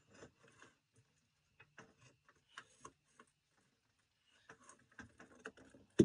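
Near silence with faint, irregular clicks and creaks from a floor jack slowly lowering a John Deere 310K backhoe transmission.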